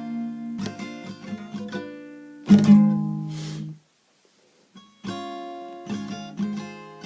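Acoustic guitar strummed in a steady rhythm. A hard strum about two and a half seconds in rings and is cut off short, followed by about a second of silence, then the strumming starts again.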